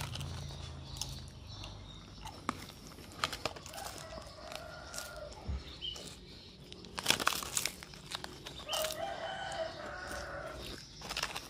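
Clicks, taps and scraping of utensils at a street crepe griddle. Two drawn-out pitched calls, each about a second long, come about four and nine seconds in.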